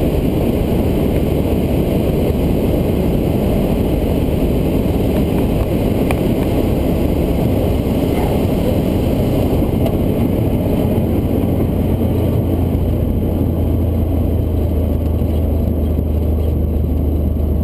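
Steady drone of a single-engine Cessna's piston engine and propeller, heard from inside the cabin, with a low hum that grows a little stronger about ten seconds in.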